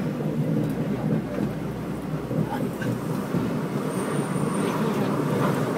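Singapore MRT train running, heard from inside the carriage: a steady low rumble of wheels and running gear. A faint, brief high whistle comes about four seconds in.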